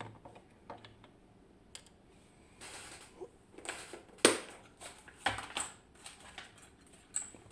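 Small metal lock parts and tools clicking, clinking and scraping as a BiLock camlock is taken apart, with irregular sharp clicks, the loudest about four seconds in.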